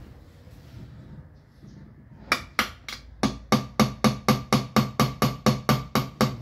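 Hammer striking a nail into a wooden board in quick, even blows. The blows begin about two seconds in and settle into roughly four a second, each with a short ring.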